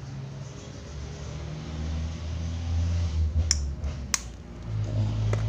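Two sharp plastic clicks, about three and a half and four seconds in, as a small plastic bottle of red paint is handled and squeezed over a bowl of glue. A low steady hum runs underneath.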